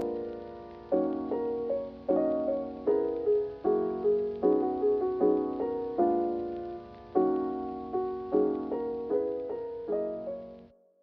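Background piano music: soft chords struck about once a second, each dying away, fading out and stopping near the end.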